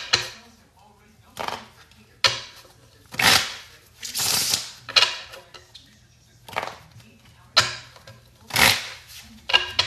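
A deck of playing cards being riffle-shuffled again and again, about eight short bursts of card noise with gaps between them.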